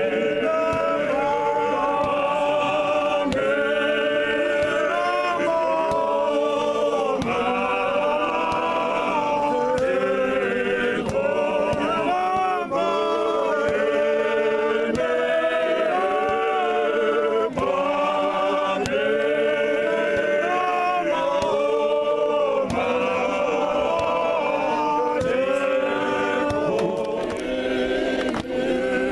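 Male choir singing a cappella, phrase after phrase without a break.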